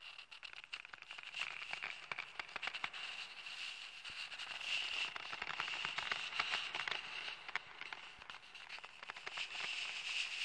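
Dense crackling and clicking over a faint, steady high tone: the opening texture of a glitch/ambient electronic track.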